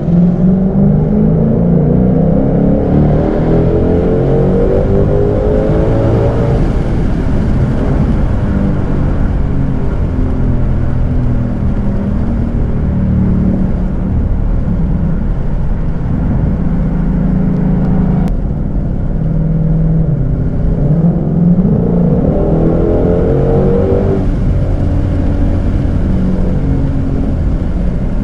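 Supercharged 5.2-litre V8 of a Shelby GT500 under hard acceleration on its stock intake. Its pitch climbs over the first six seconds, it then runs steadily, and a second, shorter rising pull comes about three quarters of the way through.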